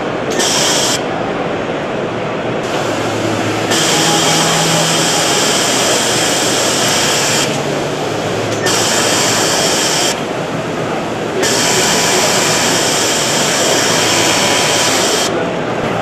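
Juki MO-6914C industrial overlock sewing machine running at high speed in several runs, a short burst near the start then three longer stretches, each adding a bright hiss over a steady machine hum.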